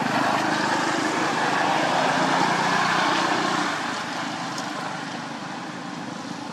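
A motor engine running nearby, its sound swelling and then fading a little under four seconds in.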